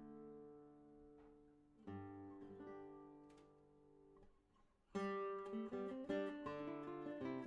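Background early music on a plucked string instrument: slow, ringing notes that die away to a brief near-pause just before the five-second mark, then a louder, busier passage.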